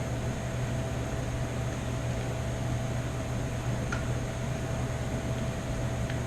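Steady machine-like background hum with hiss and a faint high whine, with one faint tick about four seconds in.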